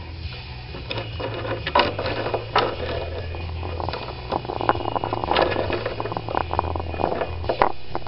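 African grey parrot's beak clicking, tapping and scraping at the camera right against the microphone. The clicks are irregular and come thicker and louder from about halfway through.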